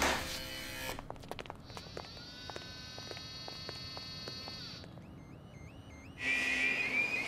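Electronic sound effects: a brief noisy whoosh at the start, then a steady electronic hum with evenly spaced ticks. Around five seconds a short pulsing whir comes from the security camera. From about six seconds a louder, steady warbling electronic tone sounds.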